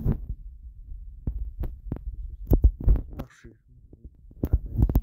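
Irregular low thumps and clicks in clusters, with a short quiet spell about three and a half seconds in.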